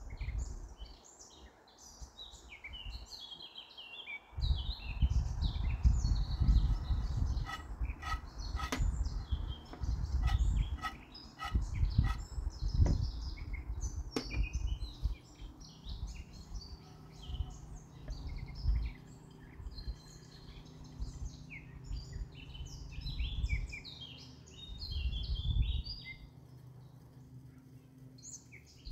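Birds chirping and singing throughout, over a low rumbling noise that fills most of the middle. A run of short sharp ticks, about two a second, comes a third of the way in.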